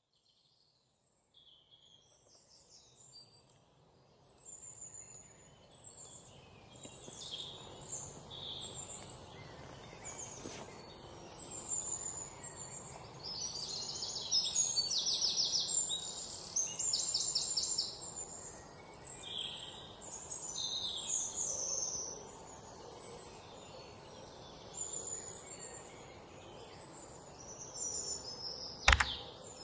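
Several birds calling and singing over steady low background noise, with bursts of fast trills around the middle. A single sharp click near the end.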